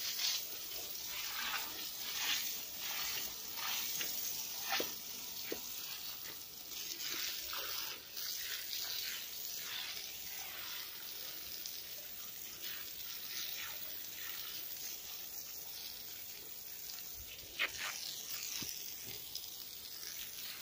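A jet of water from a hose spraying onto concrete stairs, washing off wet volcanic ash: a steady hiss and splatter that swells and fades as the jet moves across the steps.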